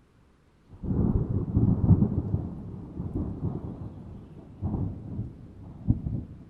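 Thunder: a sudden loud crack and rumble begins about a second in and rolls on, fading unevenly with further rumbles near the end.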